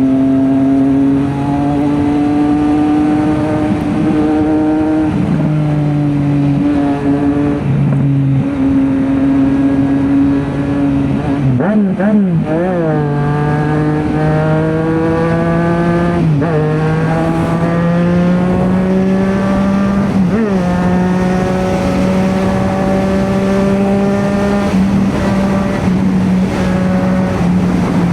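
2024 Triumph Street Triple RS 765's inline three-cylinder engine heard through an SC Project S1 slip-on exhaust with the silencer insert out, while riding. The engine note holds steady, steps down in pitch and then climbs slowly with gear and throttle changes. There are short, sharp swings in revs near the middle and a couple more a few seconds later.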